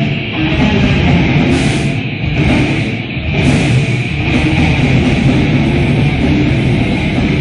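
Heavy metal band playing live, loud and dense.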